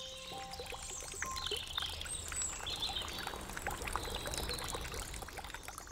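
Small birds chirping repeatedly over the steady rush of running water, with the last held notes of a tune dying away in the first second.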